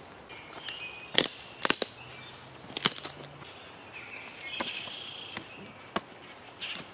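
Dry firewood sticks snapping: about half a dozen sharp cracks at uneven intervals, one of them a quick double crack.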